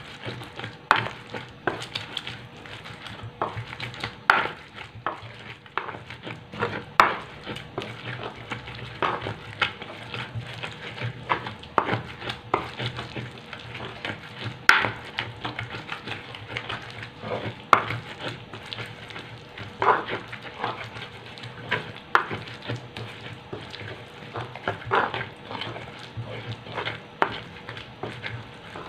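Pestle grinding wet sambal belacan (chillies, tomato, shallots, garlic and shrimp paste) in a stone mortar, with irregular wet scraping and knocking strokes of stone on stone.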